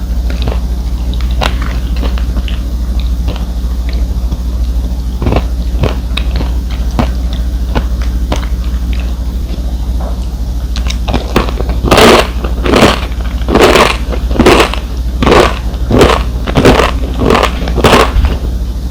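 A person chewing food close to the microphone over a steady low hum: small soft clicks at first, then a regular run of about ten loud crunchy chews in the second half.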